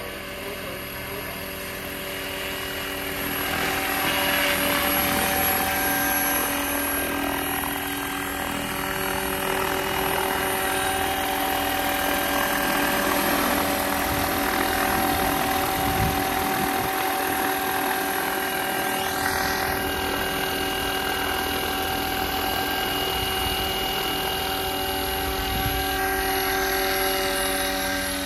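Roban 800-size UH-1D Huey electric RC helicopter in flight: a steady whine from its electric motor and gearing, with several held tones over the whoosh of the rotor blades. It grows louder about four seconds in and stays loud as the helicopter flies close.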